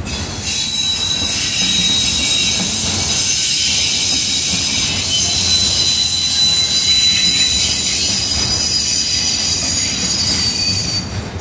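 Freight train of autorack cars rolling past, its steel wheels squealing against the rails in a high, steady squeal over a low rumble from the cars.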